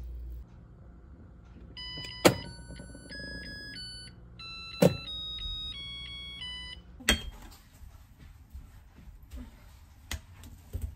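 Zojirushi NW-JW10 rice cooker being set for a timed cook: sharp clicks from the cooker, two of them each followed by a short electronic tune of beeping notes. The loudest sounds are the clicks.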